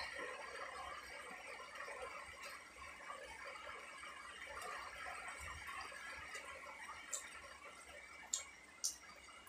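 Close-miked mouth sounds of chewing soft flatbread, with a few sharp lip smacks near the end, over a faint steady hiss.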